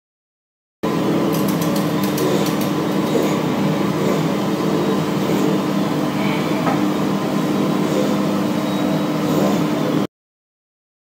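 A steady mechanical hum with a low drone, starting about a second in and cutting off abruptly shortly before the end, with a few light clicks early in the hum.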